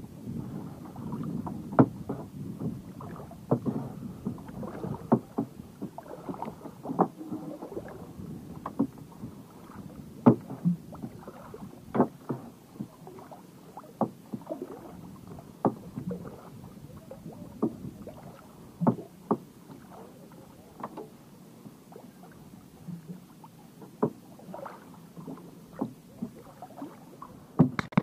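Choppy water lapping and slapping against a small boat's hull, with sharp knocks at irregular intervals of about a second.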